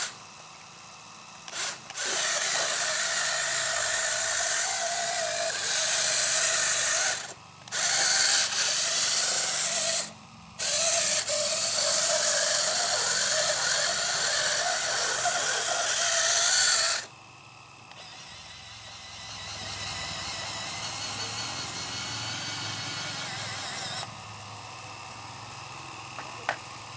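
Small electric motors and gears of a scale-model combine harvester whirring. They run in stretches and stop briefly twice, then run at a lower, quieter level for the last stretch, with a couple of clicks near the end.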